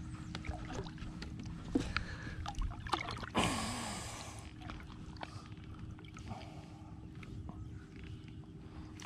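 Water sloshing and splashing at the side of a boat as two smallmouth bass are held in the water and released, with a louder splash a little over three seconds in. A steady faint hum runs underneath.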